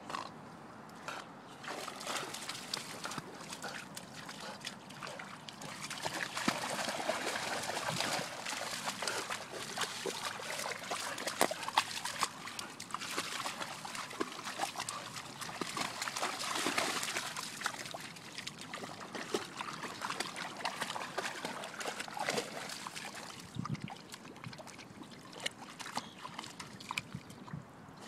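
A dog swimming and wading in shallow pond water: sloshing and splashing with dripping, busiest through the middle stretch.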